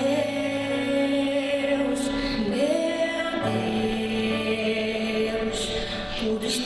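Portuguese-language Christian worship song: a singer holds two long notes over sustained instrumental accompaniment.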